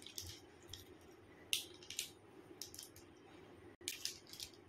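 Faint, scattered crinkles of a chocolate bar's wrapper being handled, a few short crackles a second or so apart.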